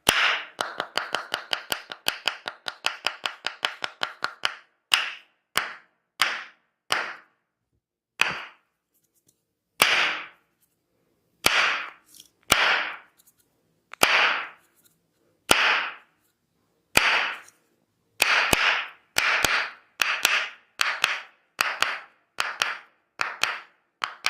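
Massage strikes: a fast run of sharp strikes, about six a second, for the first four seconds, then single strikes about once a second, each with a short ringing tail.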